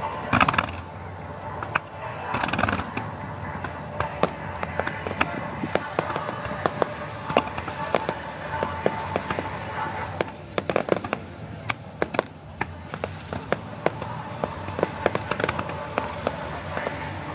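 Fireworks display: many shells bursting and crackling in quick succession throughout, with music playing along to the show.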